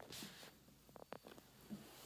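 Near silence with faint rustling and a few soft scratches and clicks from a kitten play-fighting on a denim lap, with a short hiss of noise just after the start.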